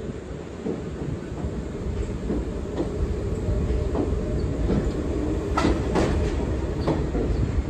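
R46 New York City Subway train running alongside the platform: a steady low rumble that grows louder, with the wheels clicking sharply over rail joints several times in the second half.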